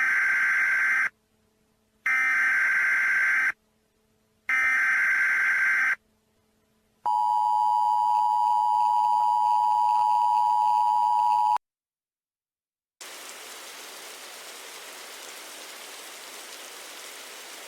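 Emergency Alert System tones: three short bursts of the SAME digital header warble, then the two-tone attention signal held for several seconds and cut off sharply, the warning alert for a tornado emergency. A steady static hiss follows near the end.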